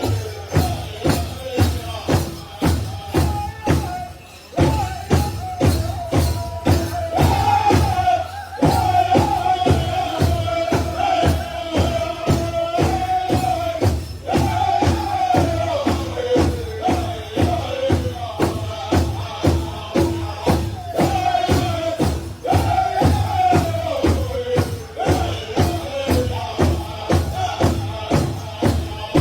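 Powwow drum group singing a chicken dance song over a large shared bass drum struck steadily about three times a second. The high sung phrases repeatedly fall in pitch.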